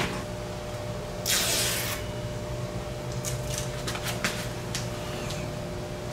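Hands handling small parts at the boat's edge: a short rasping hiss about a second in, then a few light clicks and taps, over a steady hum.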